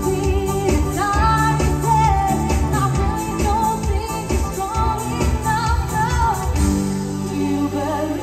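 Live pop music: a woman singing the lead melody over a steady drum beat and bass. The drum beat drops out about a second and a half before the end, leaving held chords under the voice.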